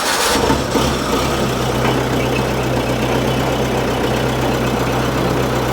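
Case 1845 skid steer's 188D four-cylinder diesel on a cold start: it finishes cranking and catches within the first half second, then settles into a steady idle.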